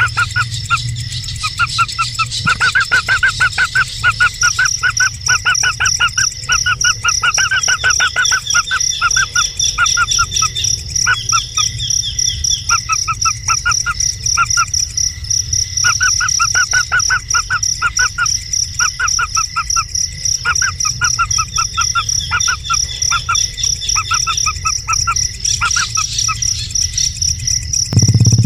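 A bird calling in fast runs of short chirps that break off and start again, over a steady high-pitched insect drone.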